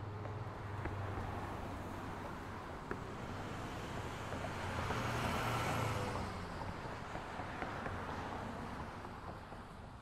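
Street traffic ambience: a steady wash of road noise and engine hum from passing vehicles, building to its loudest around the middle and easing off again, with a few small clicks.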